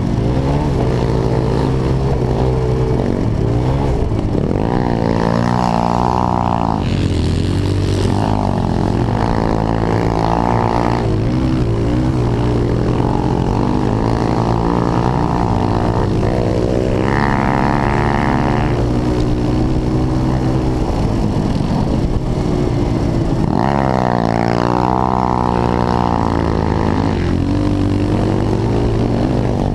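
Pit bike engine heard from on board, revving hard and repeatedly rising in pitch then dropping back as the rider accelerates, shifts and rolls off for turns.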